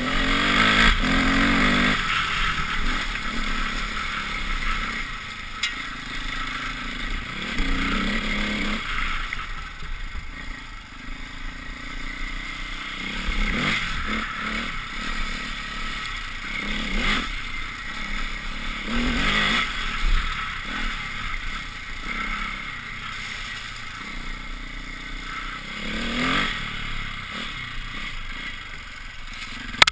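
Off-road motorcycle engine revving up and dropping back again and again as the rider opens and closes the throttle and shifts gears, under a steady rush of wind and tyre noise on the dirt track.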